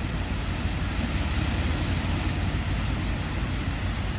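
Steady wash of small waves breaking on a sandy beach, with wind noise on the microphone.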